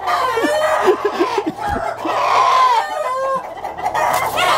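Native-breed (nati koli) chickens clucking and squawking, many overlapping calls with a louder drawn-out call about two seconds in. It is a call the keeper says cross-bred birds cannot make.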